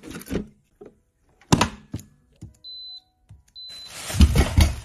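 Kitchen handling knocks and thumps, with two short, high electronic beeps from an appliance's touch panel a little past the middle. A louder cluster of thumps comes near the end.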